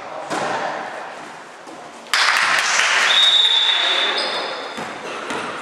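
A volleyball is struck near the start. About two seconds in, spectators break into loud cheering and clapping as the rally ends, fading over about three seconds, with a long, steady high whistle partway through.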